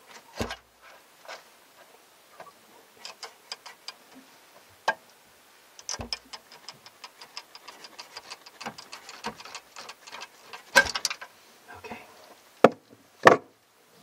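Irregular small clicks and ticks, with a handful of sharper knocks, from plastic wire connectors and hand tools being worked at the control board of a Bosch tankless electric water heater during its removal. The loudest knocks come about eleven seconds in and twice near the end.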